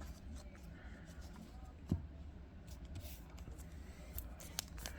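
Trading cards being handled and flipped through, with faint scattered clicks and rustles of card on card, and a soft thump a little under two seconds in.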